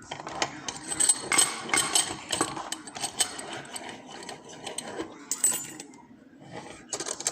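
Irregular metallic clicks, clinks and rattles of a brass padlock and lock-picking tools being handled. They are densest over the first five seconds, thin out, and bunch up again briefly near the end.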